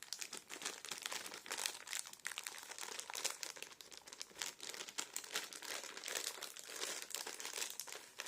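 Plastic sweet packet crinkling continuously as it is handled, a dense run of crackles.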